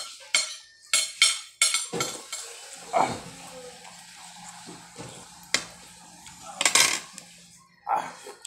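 Metal spoon scraping and clinking against a plate of rice as food is scooped up, in a series of sharp scrapes and clicks: several close together in the first two seconds, and a loud cluster about 7 seconds in.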